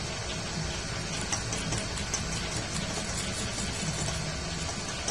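Metal lathe running with a pinion gear shaft spinning in its chuck: a steady mechanical hum with light, quick ticking over it.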